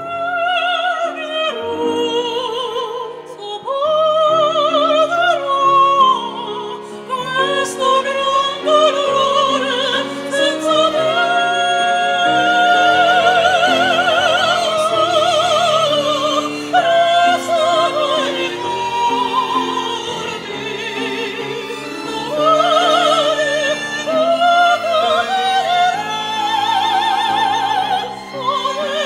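Two mezzo-sopranos singing a duet in operatic style with wide vibrato, accompanied by a string ensemble of violins and a piano.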